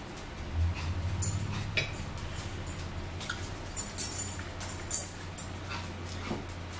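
Metal forks clinking and scraping on plates, several sharp clicks with the loudest two about a second apart, over a low steady hum that starts about half a second in.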